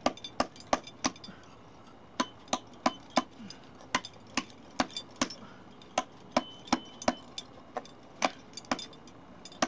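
A climber's hammer striking a steel piton in a granite crack: sharp metallic blows about three a second, with a short pause near the start, some leaving a brief ring. The piton is being hammered back and forth to loosen it so it can be removed.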